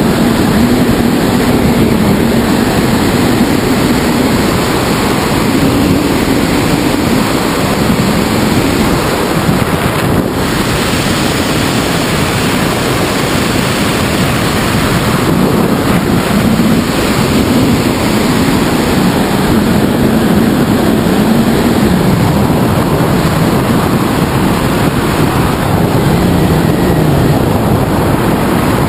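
Loud, steady rush of airflow over a wing-mounted GoPro's microphone on a tandem hang glider in flight, with a faint low hum that slowly rises and falls in pitch.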